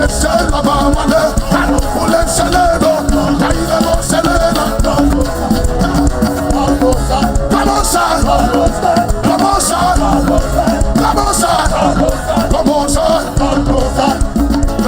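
Live church worship music: a band playing with many voices singing along.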